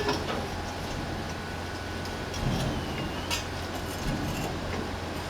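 Construction-site machinery running with a steady low engine rumble, with scattered metallic knocks and clicks.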